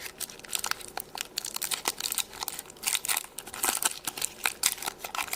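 Hands handling purple Play-Doh modelling clay, a steady run of small crinkling, clicking handling noises.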